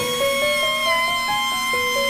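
Instrumental background music: a quick melody of short stepping notes over a steady high held tone.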